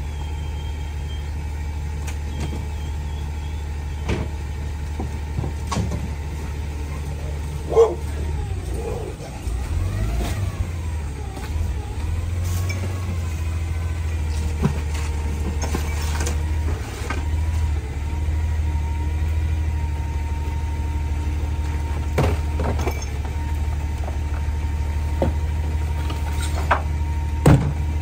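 Leach 2R-III rear-loader garbage truck's CNG engine idling steadily, with sharp knocks and clanks of trash and metal scattered throughout. About ten seconds in, the engine note wavers for a few seconds before settling again.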